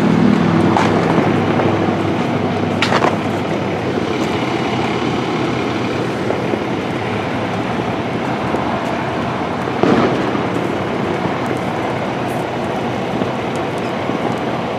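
Fire engine running steadily with a constant rushing noise and a low hum, broken by a sharp crack about three seconds in and another around ten seconds.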